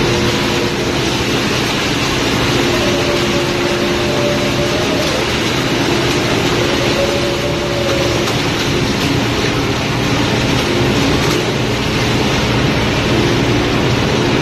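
Steady, loud machinery noise with a rushing wash of water as tuna slide in a continuous stream down a wet stainless-steel chute into a steel hold. A faint tone wavers in and out over the noise.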